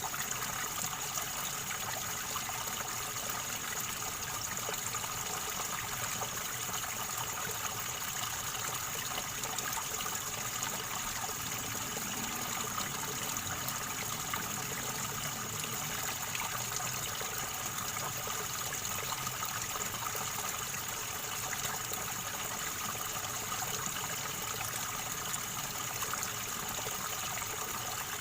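River water gurgling and flowing steadily over stones, an even rushing without breaks.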